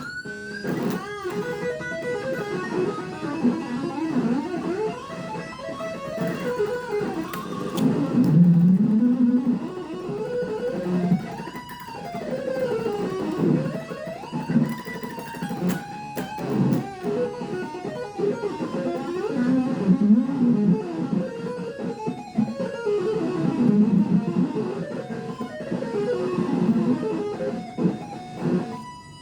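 Ibanez RG electric guitar played through a Zoom G3Xn multi-effects processor: a continuous melodic lead line with notes that glide up and down in pitch.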